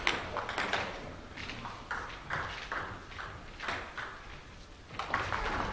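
Table tennis balls clicking on tables and bats: scattered light, sharp ticks at irregular intervals.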